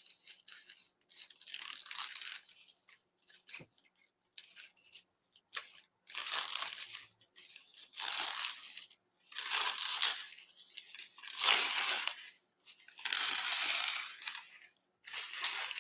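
Thin black plastic garbage bag rustling and crinkling as the cut sheet is pulled apart and unfolded, in a series of bursts about a second long that grow louder toward the end.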